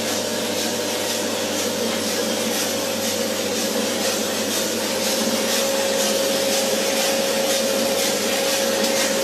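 A 5 kg drum coffee roaster running: a steady mechanical whirring noise with a constant hum in it, growing slightly louder in the second half.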